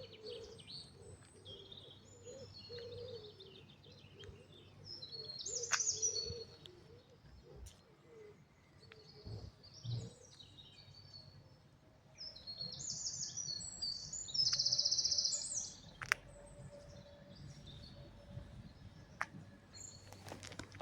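Songbirds singing, a string of high chirping and trilled phrases, the loudest a fast buzzy trill about two-thirds of the way through, with a few sharp clicks.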